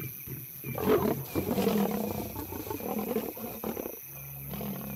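Lions growling harshly in a confrontation, a run of rough growls that dies away about four seconds in, when a low steady hum takes over.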